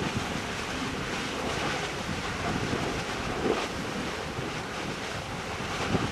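Erta Ale's lava lake churning with a steady surf-like rushing, with louder surges about three and a half seconds in and near the end, and wind buffeting the microphone.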